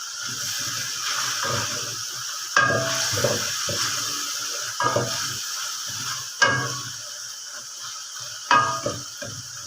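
Tomato-and-spice masala sizzling in a pan while it is stirred, with a scraping spoon and four sharp knocks of the spoon against the pan's rim.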